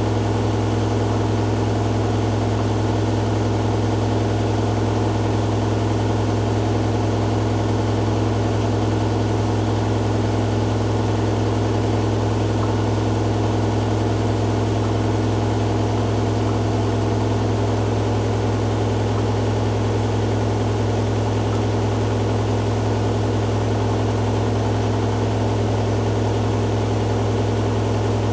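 Hoover Dynamic Next DXA610IW3 washing machine on its spin cycle, the drum spinning steadily with a constant loud hum and no change in speed.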